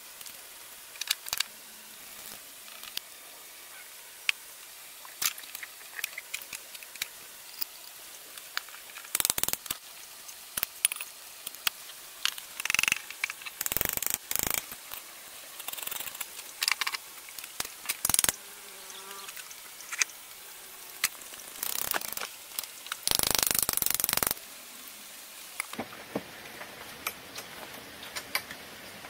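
Scattered clicks, taps and knocks of metal parts being handled and fitted as a three-phase submersible sewage pump is reassembled, including hammer taps on the impeller. About three quarters of the way through, a louder rushing noise lasts about a second.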